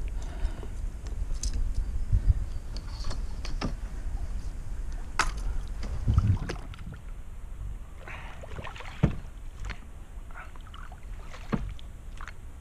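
Kayak paddling: the paddle blades dip and pull through the water, with water sloshing and dripping, and a few sharp knocks about five, nine and eleven seconds in.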